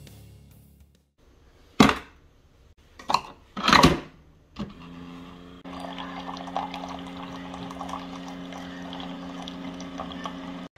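Background music fades out, then a few sharp knocks and clacks, the loudest about two seconds in and again near four seconds. From about five seconds a single-serve coffee maker runs with a steady pump hum while a thin stream of coffee pours into a ceramic mug.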